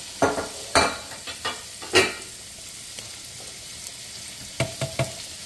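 Diced chicken thighs sizzling in hot olive oil in a large pot, with a series of sharp clacks and scrapes of a utensil against the pot as the pieces are stirred; the loudest clacks come in the first two seconds and a few more near the end.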